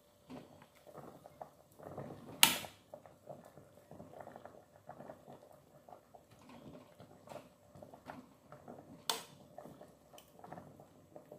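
Metal spoon stirring and scraping in an aluminium pot of water with beef skin, making irregular small clatters and splashes. Two sharp clinks of metal against the pot, about two and a half seconds in and again at about nine seconds.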